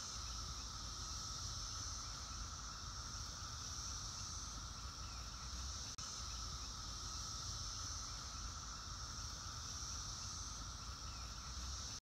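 Chorus of Brood X periodical cicadas, a steady drone in two pitches, high and lower, that swells and fades slowly, over a low rumble. A single click about halfway through.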